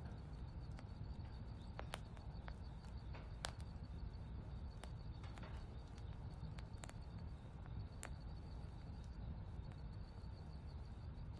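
Quiet outdoor ambience: a steady low rumble, a faint high pulsing trill throughout, and scattered sharp ticks and clicks at irregular intervals, one a little louder about three and a half seconds in.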